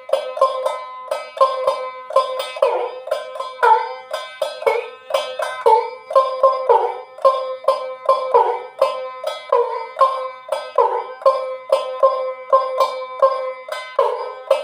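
Ektara, the one-stringed Bengali folk instrument, plucked in a steady rhythm of about three strokes a second on one twangy note, with the pitch bending down and back on some strokes.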